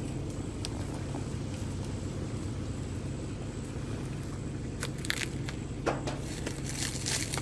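Car engine idling, a steady low hum heard from inside the cabin, with a few faint clicks in the second half.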